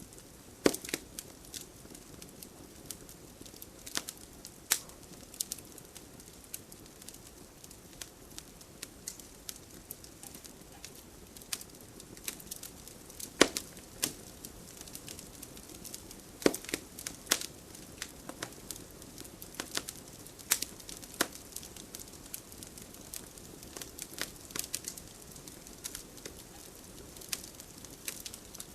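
Wood fire burning in a fireplace, crackling and popping at irregular intervals over a soft steady hiss of the flames, with a few louder sharp pops.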